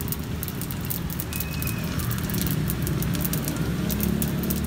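Hot oil sizzling and crackling with frequent small pops as cireng fry in a stainless deep fryer basket, over a steady low hum.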